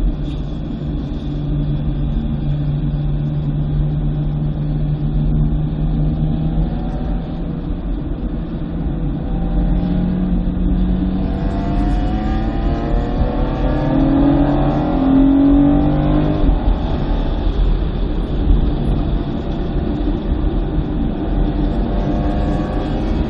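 2009 BMW M3's V8 engine running under load on a circuit, its pitch steady at first, then rising and falling several times through the middle as the car accelerates and shifts, over constant road noise.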